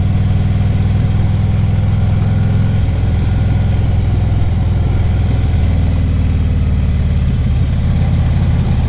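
2014 Harley-Davidson Ultra Classic Limited's V-twin engine running steadily while cruising down the road, its note shifting slightly about three seconds in and again about six seconds in.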